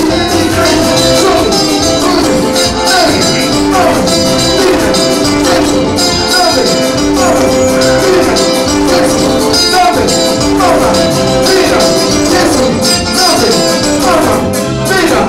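Live church band playing upbeat dance music, with a steady beat, shaker or tambourine, and a sung vocal line.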